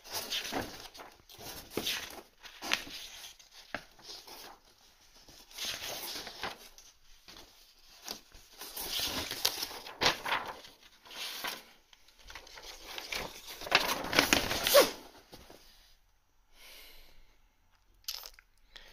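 Packaging from flat-pack parts being torn and crumpled by hand, in a run of short, irregular bursts, the loudest about three-quarters of the way in.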